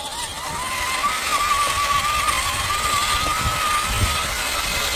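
Electric motor and gearbox of a Traxxas TRX-4 1/10-scale RC crawler whining as it drives, the pitch wavering with the throttle and stepping up slightly about a second in, over a low rumble.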